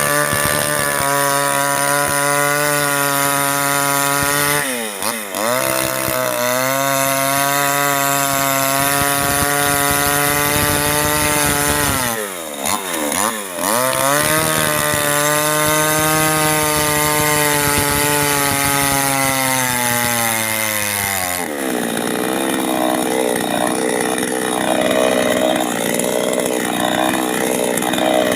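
Two-stroke chainsaw running hard while cutting oil palm. Its pitch dips and recovers twice, about 5 and 13 seconds in, and after about 21 seconds it settles into a lower, wavering note.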